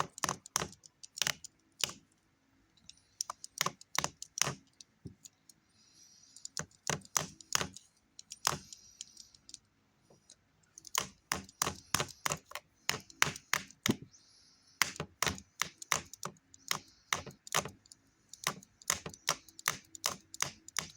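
A TV remote being tapped or whacked over and over: sharp clicks in quick irregular runs of several a second, broken by short pauses.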